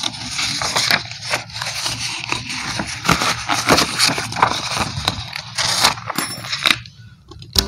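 Kraft-paper journal sheets rustling and scraping as they are handled, lifted off a ring binder and laid down, with many small clicks and taps. There is a short lull just before the end, then one sharp tap.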